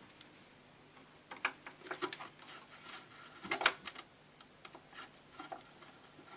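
Scattered small clicks and knocks of hands and tools working on an old radio's chassis and wooden cabinet to free the chassis. The loudest knock comes a little past the middle.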